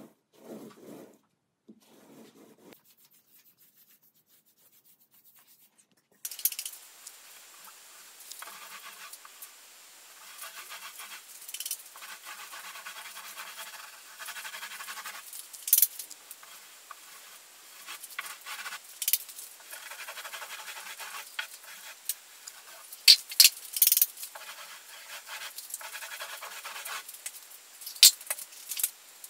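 Paint roller on an extension pole rolling paint across a ceiling: stretches of rubbing a few seconds long, starting about six seconds in, with several sharp clicks.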